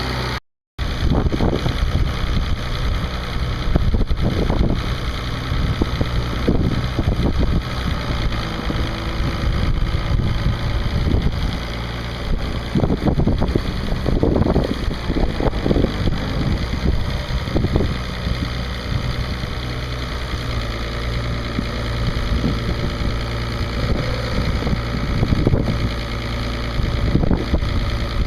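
International D282 diesel engine of a loader backhoe running steadily, with frequent irregular knocks and clanks over the engine sound. The sound drops out for a moment about half a second in.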